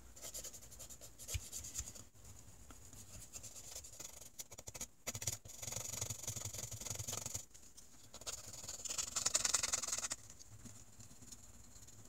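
A pointed wooden stick scrubbing dry against a rusty pocket-knife blade, a faint scratchy rubbing in uneven bouts, loudest around the middle and again shortly before the end. The blade is being dry-scrubbed without oil to loosen its surface rust.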